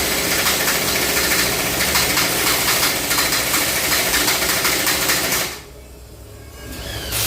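Loud, steady, rapid-rattling noise of a workshop tool at work on a truck driveshaft. It cuts out for about a second near the end, then starts again.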